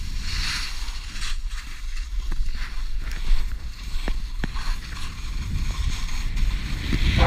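Skis scraping and hissing over hard, thin early-season snow during a downhill run, with wind rumbling on the camera's microphone and a few sharp clicks.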